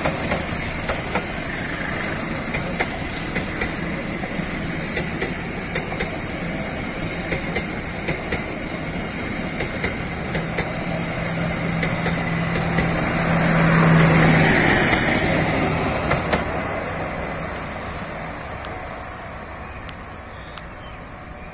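Passenger coaches of a long-distance train rolling past, the wheels clacking over rail joints above a steady rumble. The sound swells with a low hum about two-thirds of the way through, then fades as the end of the train draws away.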